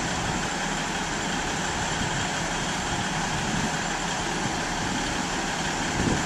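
Class 158 diesel multiple unit's underfloor diesel engine running steadily close by, an even hum and hiss with no change in pitch.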